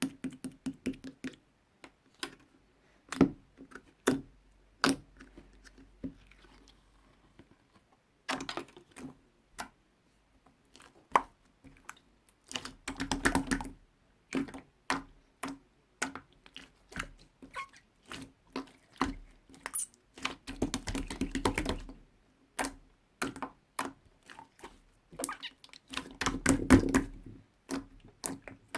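Slime being pressed, poked and stretched by hand, giving a long run of sharp sticky clicks and pops. Three times, in the middle and near the end, the pops come fast and close together into a crackling run.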